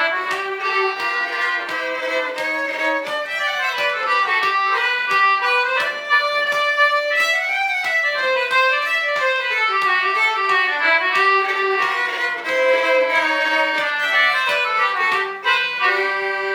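Fiddle playing a lively folk tune, with a quick, moving melody that settles onto a long held note near the end.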